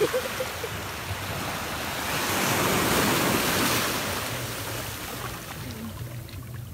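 A small sea wave washing in over shallow water at the shore, swelling to a rush of surf about two to four seconds in and then draining back.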